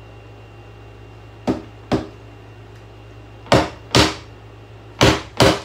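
A plastic hair dryer being banged, giving three pairs of sharp knocks over a steady low hum. The dryer is overheating and smoking.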